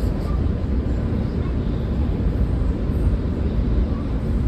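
New York City Subway Q train running: a steady low rumble.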